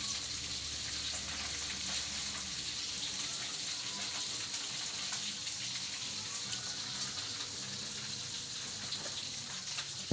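Hot oil sizzling steadily in a frying pan as food fries, a constant hiss with fine crackling.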